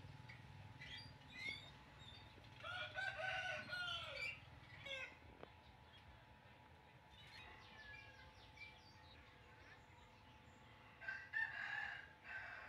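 A rooster crowing twice, about three seconds in and again near the end, each crow lasting a second or more; small birds chirp in between.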